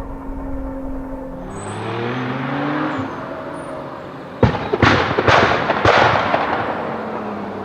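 Nissan GT-R engine running steadily, then rising in pitch as it accelerates; about four and a half seconds in comes a sharp bang, followed by three loud noisy bursts.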